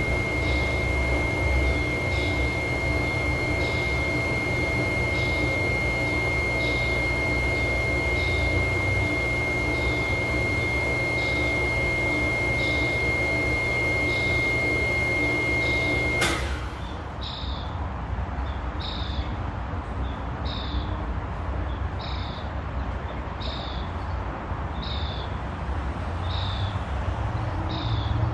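A small bird's short, high chirp, repeated evenly about once a second, over a low background rumble. A thin, steady high whine in the background stops abruptly partway through.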